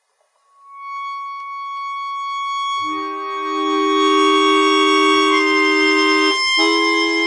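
Solo instrumental music: a single held high note swells in, then sustained reedy chords with a low part join about three seconds in, breaking off briefly for a moment before the chord resumes near the end.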